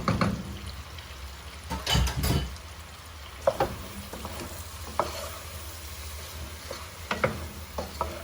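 A utensil stirring a pan of pork caldereta sauce that is sizzling, with scattered scrapes and knocks against the pan, the loudest about two seconds in. A steady low hum runs underneath.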